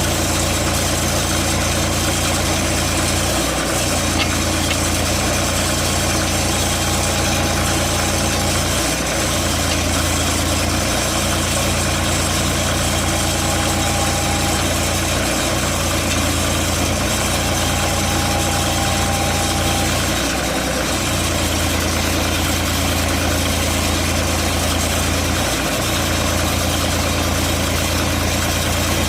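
Portable sawmill's engine running steadily, its low hum dipping briefly every few seconds.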